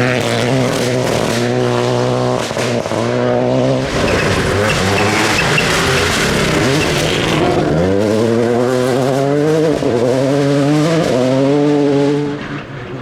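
Rally car engine at full throttle, its note climbing and dropping back at each quick upshift, with a stretch of rougher noise and little engine note in the middle, then accelerating hard through the gears again before fading near the end.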